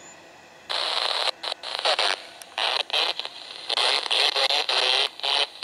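Crackly railroad radio transmission from a handheld scanner, starting abruptly about a second in and cutting in and out, with a garbled voice that can barely be made out.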